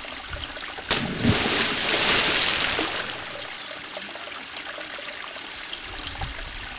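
Steady rushing hiss like running water. About a second in, a much louder rush of noise with a low thump starts suddenly and dies away after about two and a half seconds.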